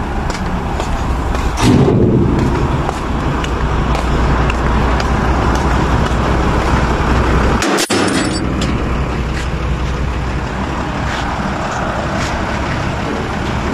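Heavy diesel truck engine idling with a steady low hum under outdoor traffic noise, swelling louder about two seconds in. The sound drops out for an instant just under eight seconds in.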